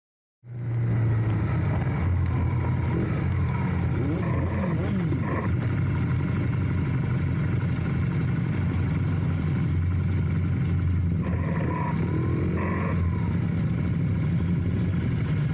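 Motorcycle engines running at low speed in traffic, a steady low drone that starts about half a second in.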